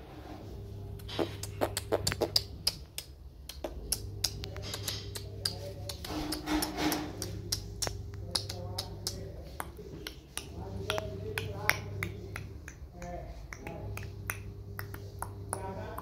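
A pet parakeet making many sharp clicks mixed with short bursts of soft chattering.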